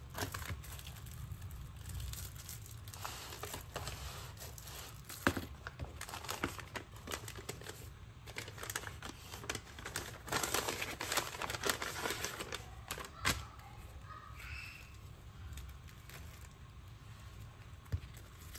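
Paper and plastic packaging rustling and crinkling under hands, with many light clicks and taps: a kraft paper bag being opened and sticker packs in clear plastic sleeves being handled. The crinkling is busiest about ten seconds in, over a steady low hum.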